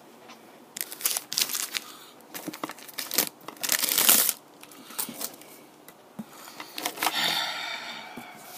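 Trading-card booster packs in crinkly foil wrappers being handled and shuffled by hand: irregular rustling and crinkling, loudest about four seconds in and again in a longer stretch near the end.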